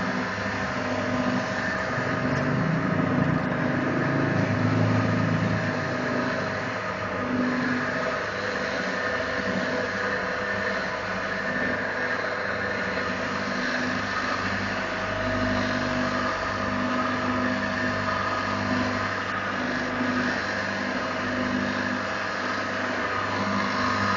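Electric meat-floss (abon) processing machine running steadily, a continuous motor hum with a regular pulsing beat from its moving parts.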